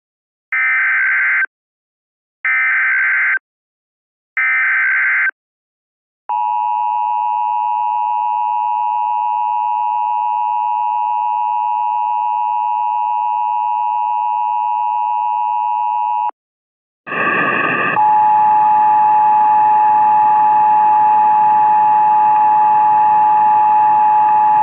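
Emergency Alert System tones: three short screeching SAME data bursts about two seconds apart, then the steady two-tone attention signal for about ten seconds. After a short gap it is followed by a stretch of noise with a single steady tone running through it.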